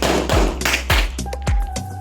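Background music with a heavy, steady beat, about two beats a second; a held tone comes in near the end.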